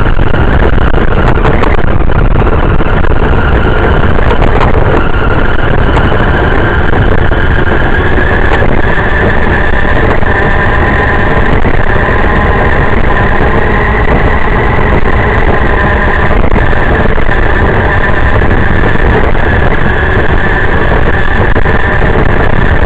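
Radio-controlled car driving over rough asphalt, heard loud and close from a camera mounted on its body: a continuous rumble and rattle from the tyres and chassis with a steady motor whine under it.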